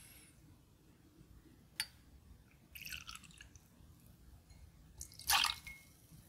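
Vodka poured from a bottle into a metal jigger, then the jigger tipped into an empty glass tumbler, the liquid splashing into the glass near the end. A single sharp click comes about two seconds in.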